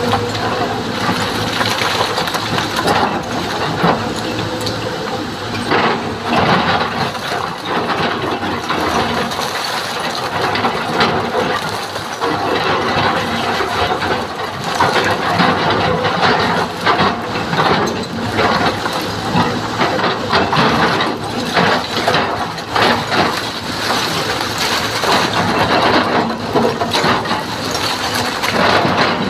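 Excavator working rock: the diesel engine runs steadily under a continual irregular clatter and knocking of stone against the steel bucket.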